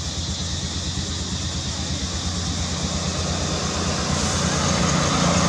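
Steady low rumble of passing vehicle traffic, growing a little louder near the end.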